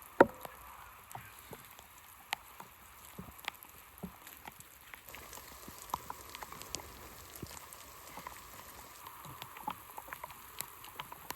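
Heavy rain falling: a steady hiss with scattered drops ticking sharply on nearby surfaces.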